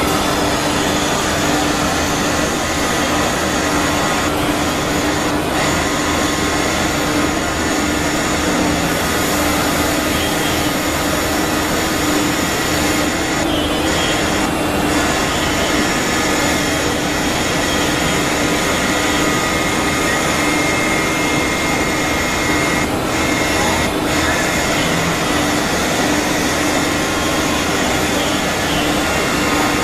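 4-axis CNC wood carving router running, its spindle and cutter giving a steady mechanical whine and rush with a constant hum underneath.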